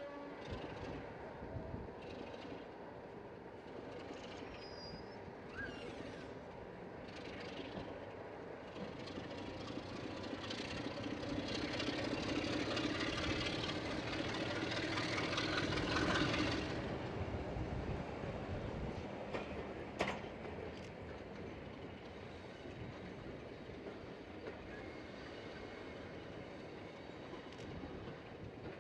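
A train of passenger coaches rolling out of a station and away on steel wheels. The rail noise builds to its loudest as the last coach passes close by, then falls off suddenly and fades. There is a single sharp clack about two-thirds of the way through.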